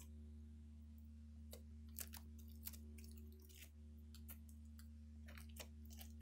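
Faint, irregular crackling clicks and pops of pink slime with foam beads as eggs are pushed and squeezed into it, over a steady low electrical hum.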